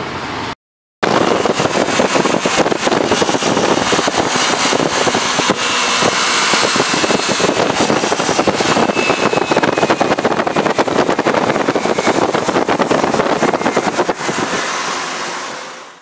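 Motorcycle running on the move, its engine buried in a loud rush of wind and road noise, fading out near the end.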